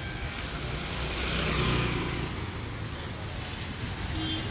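Road traffic on a busy street, with a vehicle passing close by and louder between about one and two and a half seconds in. There is a short beep near the end.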